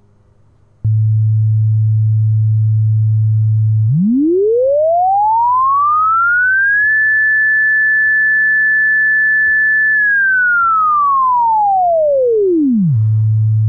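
Computer-generated sine tone following a linear frequency sweep, starting with a click about a second in. It holds a steady low 110 Hz note, glides up four octaves to 1760 Hz, holds there for about three seconds, then glides back down to 110 Hz and holds again. Because the sweep is linear in frequency, the low part of each glide seems to hurry by.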